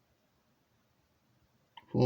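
Near silence: faint room tone, with a small click near the end and the start of a spoken word at the very end.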